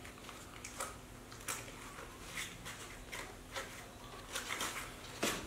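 Quiet, irregular small clicks and rustles of baby monkeys handling and eating pieces of steamed rice cake, with one sharper brief sound near the end.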